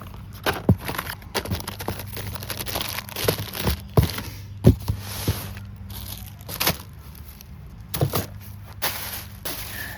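Fireworks packages being handled and moved about: irregular knocks and taps with bouts of crinkling packaging.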